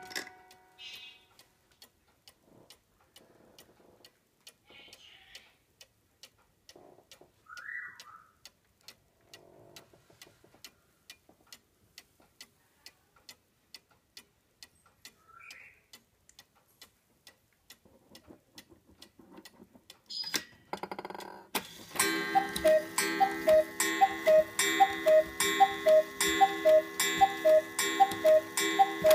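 Mechanical cuckoo clock ticking steadily. Near the end the striking train releases with a short whir, and the bellows cuckoo begins calling its two-note call again and again, striking the hour.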